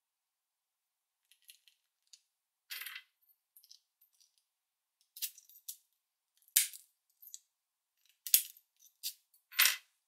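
A clear practice padlock being handled and worked with its key: scattered small metallic clicks and rattles, with three sharper clicks in the second half.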